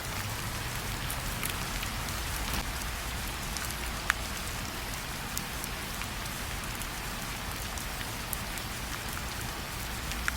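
Steady rain falling, a dense even hiss with scattered individual drop ticks and one sharper drip about four seconds in.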